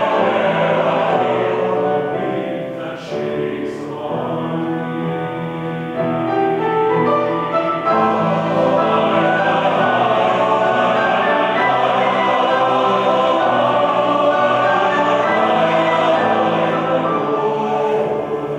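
Choir singing in harmony, holding long sustained chords; it drops to a softer passage about two seconds in and swells fuller again about six seconds in.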